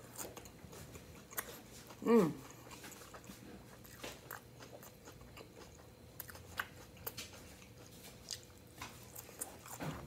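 Close-up eating sounds of grilled chicken salad: wet chewing and crisp crunching of leafy greens, with scattered small clicks of a fork in the salad. About two seconds in comes a short hum with falling pitch, the loudest sound.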